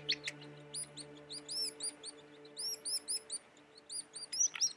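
Birds chirping, many short arching chirps repeated throughout, over a soft held music chord that fades out near the end.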